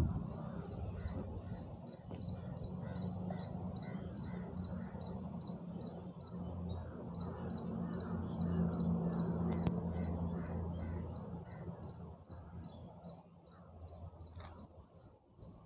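Plastic craft wire rustling and rubbing as it is pulled and knotted by hand, over a low steady hum.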